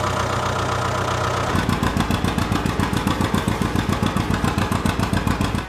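Tractor engine running: a steady low hum at first, turning about a second and a half in to an even, fast chugging that carries on to the end.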